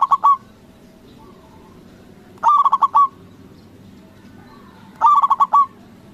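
Zebra dove (perkutut) singing its cooing song: a quick run of about five ringing notes, repeated about every two and a half seconds, with fainter, softer calls between the runs.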